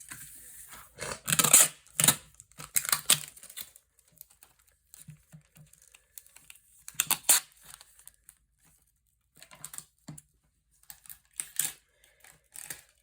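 Sticky tape being pulled off and torn in short, irregular rips, with paper crinkling as it is taped up.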